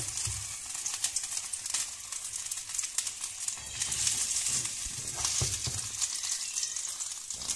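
Fish frying in oil in a pan, a steady sizzling hiss with scattered crackles, and a few light knocks of food being handled.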